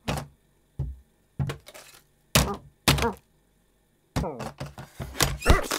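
Cartoon foley of a cat handling a clothes iron: a string of short, separate thunks and taps, then a quicker cluster of them near the end.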